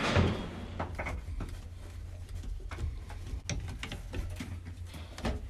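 Steady low mechanical hum with scattered light clicks and knocks.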